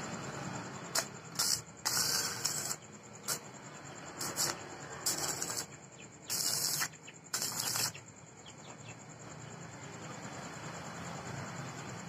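Stick (MMA) arc welding with an inverter welder: the electrode's arc crackles and hisses in a string of short, irregular bursts as it is struck and broken again and again on a steel tube joint, stopping about eight seconds in.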